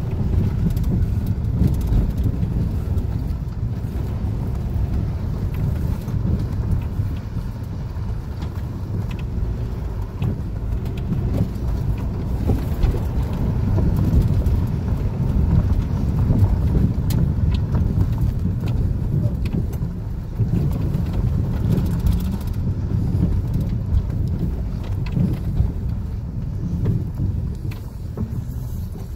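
Inside a 1997 Honda CR-V driving over a dirt road: a steady low rumble of tyres and suspension on the rough surface, with frequent small knocks and rattles.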